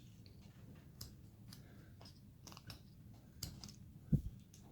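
Carving knife cutting into basswood by hand, a series of faint short scrapes and clicks as small chips are sliced off. There is one louder low knock about four seconds in.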